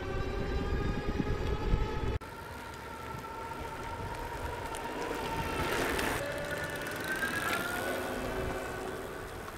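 Electric bike motor whining while riding, rising slowly in pitch over wind and road rumble; the sound cuts abruptly about two seconds in to a fainter, steadier whine.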